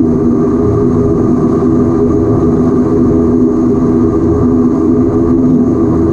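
Antonov An-24's Ivchenko AI-24 turboprop engines running steadily at taxi power, heard from inside the passenger cabin as a loud, even propeller drone with several steady tones over a low rumble.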